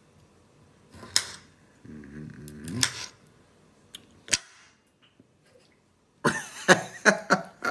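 A few sharp clicks and taps from a jar of pickled cucumbers being opened and handled, with a short low murmur of voice. Near the end comes a dense run of clicks.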